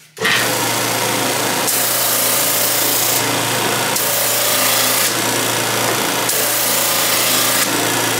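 Flatmaster drum sander's electric motor switched on and running with a steady hum. A pine board is passed over the coarse-grit (60/80) sandpaper on the drum three times, each pass adding a loud hiss of sanding.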